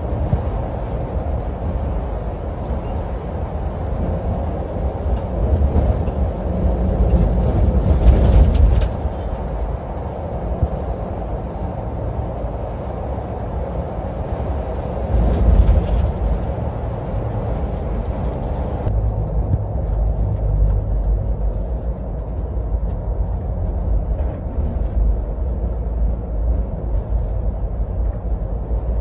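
Inside a moving bus: steady engine drone and road rumble in the cabin, with two brief louder rushes of noise about eight and fifteen seconds in.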